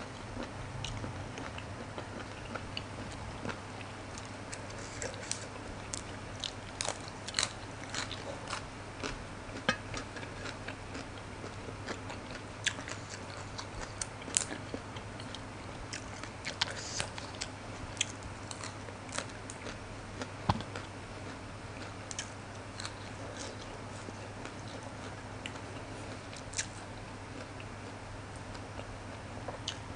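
Close-miked chewing and biting of blood cockles and crisp fresh greens, with sharp crunches and clicks coming irregularly throughout over a steady low hum.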